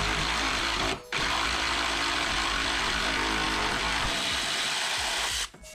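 Impact gun running a bolt out of a car's front control arm, in two long continuous runs with a short break about a second in.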